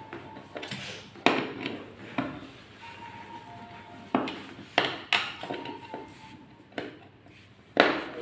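Irregular sharp knocks from chair repair work, about seven of them spread unevenly over several seconds, the loudest near the end.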